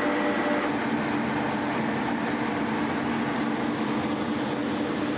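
A boiler's induced draft fan running: a steady low hum over an even rush of air.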